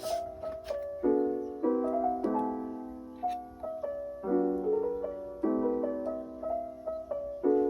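Background music: a gentle piano piece of soft chords struck about once a second, each fading away, with a few faint clicks over it.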